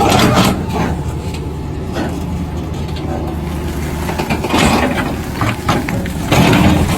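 30-tonne excavator's diesel engine running steadily under load, with bursts of scraping and clatter from the machine working. The bursts come just after the start, about four and a half seconds in, and near the end.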